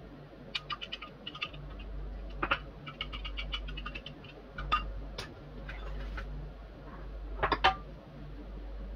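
Scattered light clicks and taps of utensils being handled around glass bowls and a metal baking tray, over a steady low hum. The loudest cluster of clicks comes about three-quarters of the way in.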